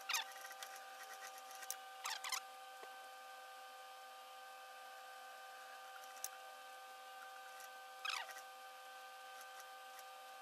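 Unicon industrial lockstitch sewing machine stitching in three short bursts, each a fraction of a second and ending in a falling whine as the motor stops, over a steady electrical hum.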